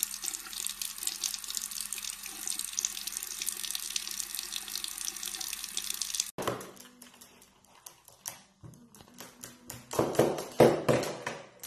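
Tap water running in a steady stream from a bathroom sink faucet, cutting off abruptly about six seconds in. After that come quieter scattered clicks and taps, with a few louder short sounds near the end.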